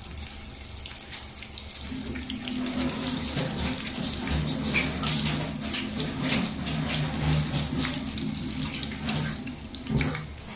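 Flour-coated fish deep-frying in a pan of hot oil: a steady sizzle with dense crackling. A low hum joins it about two seconds in.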